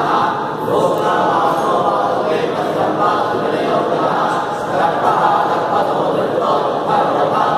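Many men's voices chanting together in unison, a steady Hindu ritual recitation by a seated group of priests.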